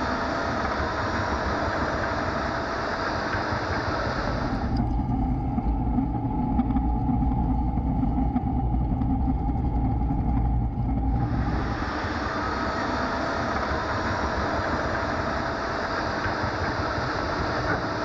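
M1 Abrams tank's gas-turbine engine running steadily, with water churning around the hull. From about 5 to 11 s the sound turns deep and muffled, mostly low rumble, then opens out again.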